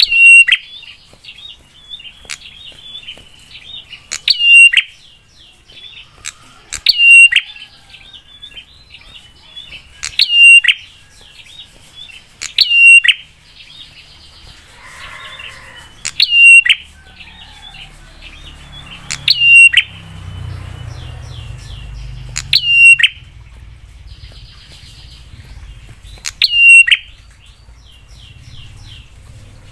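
Prinia (prenjak) singing a lure song: a loud, sharp call repeated about every three to four seconds, with runs of quick, softer chattering notes between the calls. A low rumble joins in the second half.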